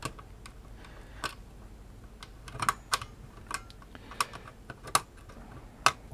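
Steel screwdriver tips prodding a plastic socket outlet's pin holes and its sprung plastic safety shutters, giving a series of irregular sharp clicks and taps.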